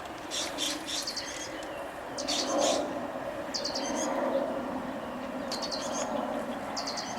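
Small songbird chirping in short, quick runs of high notes, repeated every second or so, over a faint steady outdoor background.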